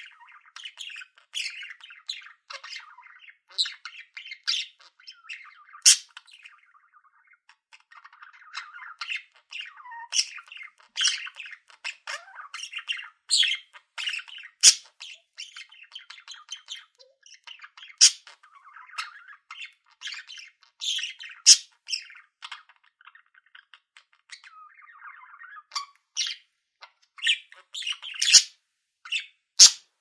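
Budgerigar chattering: a steady stream of short chirps and warbling, broken by sharp, loud squawks and a few sharp clicks.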